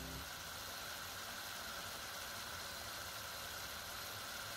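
Chopped mushrooms and pancetta simmering in a pan in a little added liquid: a steady, soft sizzle.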